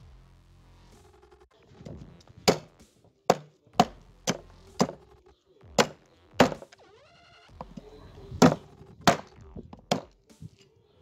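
Homemade meat cleaver, made from old chainsaw blade steel, chopping through a bone-in cut of meat onto a wooden cutting board. About ten sharp chops, with a short pause partway through, as the cleaver splits meat and bone.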